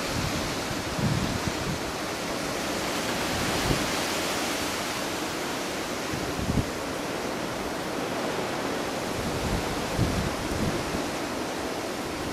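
Hurricane-force wind blowing through palm fronds: a steady, dense rush with irregular low thumps of wind buffeting the microphone.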